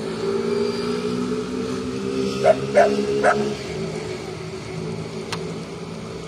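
A dog barking three times in quick succession, short sharp barks, over a steady low hum.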